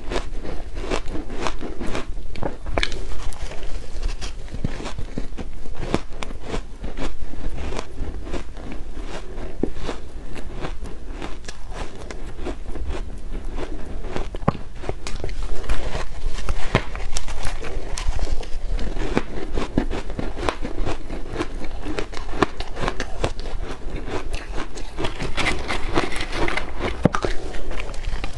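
Close-miked chewing of shaved ice coated in matcha green tea powder: a dense, continuous crunching and crackling as mouthfuls are bitten and chewed.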